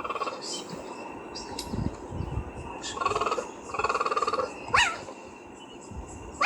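Cheetah calls: a stretch of pulsed, stuttering churring, then sharp high chirps that sweep quickly downward in pitch, one about two-thirds of the way in and another at the end.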